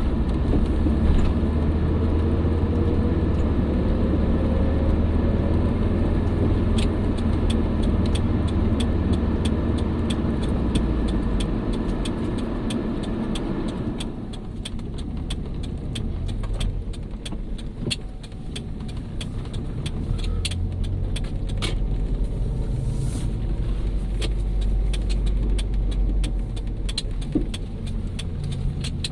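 1997 Volvo 850 AWD on the move: a steady low drone with many small clicks and rattles, and a faint whine rising in pitch in the first few seconds. The higher road noise drops away about halfway through. This is the whirring the car has started making.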